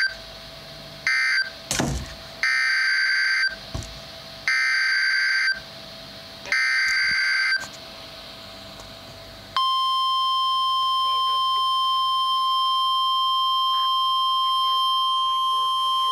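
Emergency Alert System SAME header: a series of loud, roughly one-second bursts of warbling data tones about a second apart. About nine and a half seconds in, the steady 1050 Hz NOAA Weather Radio warning alarm tone starts and holds, announcing a new warning.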